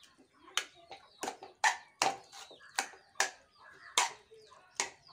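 A metal spoon stirring grated carrot in milk in an aluminium pan, scraping and knocking against the pan about ten times, roughly twice a second and unevenly spaced.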